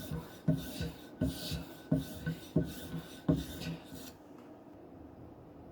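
Steel knife edge scraping across a hard polymer strop charged with an oil-and-diamond emulsion, one rasping stroke about every two-thirds of a second, stopping about four seconds in.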